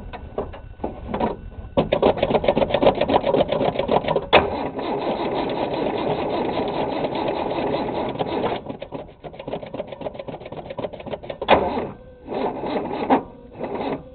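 Ford 200 cubic-inch straight-six being cranked over by the starter in the cold without catching: a rapid, even cranking rhythm for several seconds with one sharp knock about four seconds in, then the cranking turns uneven and breaks into short separate bursts near the end, as the battery gives out.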